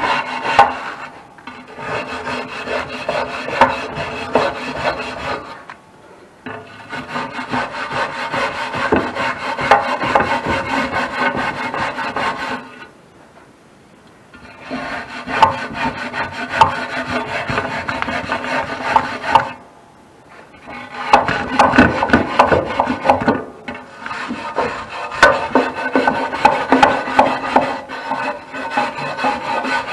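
Wire brush scrubbing back and forth in the metal gasket channel of an outdoor wood furnace door, cleaning out soot and old gasket residue. It comes in four spells of rapid scrubbing, with short pauses about a quarter, halfway and two-thirds of the way through.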